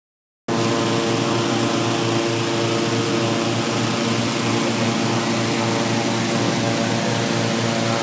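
Engine-driven hot-air balloon inflator fans running steadily, a constant engine-and-propeller hum that starts abruptly about half a second in.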